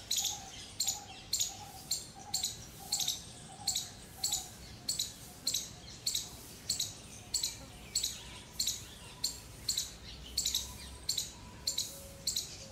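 Bird calls: a coppersmith barbet's low, even 'tuk' note repeats about twice a second, fading out about halfway through. Over it runs a steady series of sharp, high chirps, also about two a second, from another bird.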